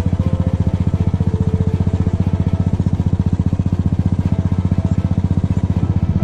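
Royal Enfield Classic 350's single-cylinder engine running steadily at low speed while riding, its exhaust giving an even, rapid thump of about a dozen beats a second.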